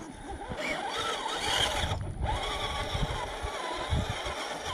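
Motor and gears of a 1/10-scale RC crawler truck whining, the pitch rising and falling with the throttle, over low rumbles and thumps. The sound drops out briefly about two seconds in.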